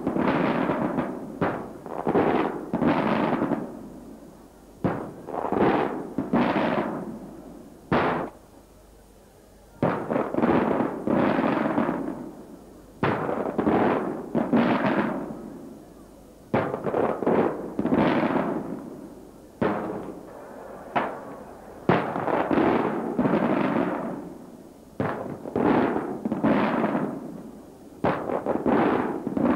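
Traditional Maltese aerial firework shells bursting in quick succession, each a sharp bang trailing off into a rolling echo, about one every second, with a short lull about eight to ten seconds in.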